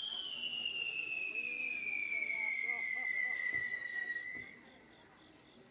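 A long firework whistle from a ryusei rocket display, its pitch sliding steadily down for about four seconds before cutting off, over a steady high chirring of crickets.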